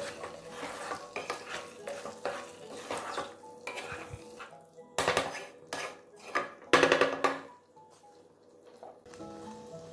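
A spatula scraping and knocking against a nonstick frying pan while stirring a thick beef masala. There are irregular scrapes and clinks throughout, with louder clanks about five seconds in and again around seven seconds.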